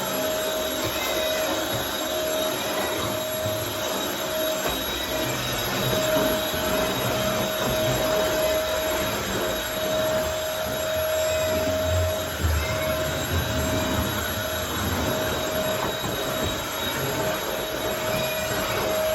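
Vacuum cleaner running steadily: an even rushing noise with a high whine.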